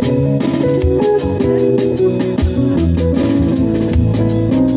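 Live band music: guitar notes over a drum kit, with cymbal or hi-hat strokes keeping a steady beat.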